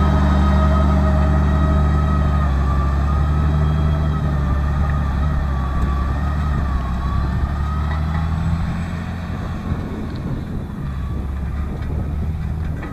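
John Deere tractor's diesel engine running under steady load as it pulls a Horsch seed drill away, growing gradually fainter. A high, slightly wavering whine runs over the engine sound.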